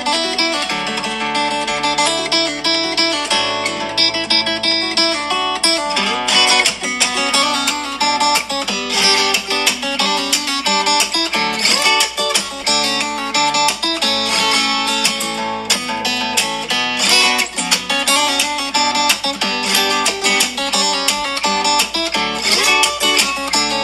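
Background music led by a plucked acoustic guitar playing many quick notes.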